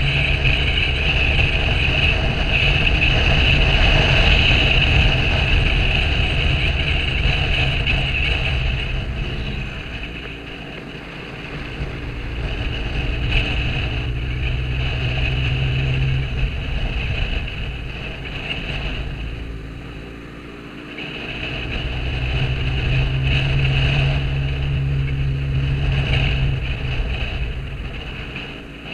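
Motorcycle engine running while riding along, with wind noise on the microphone; the sound dips twice for a moment.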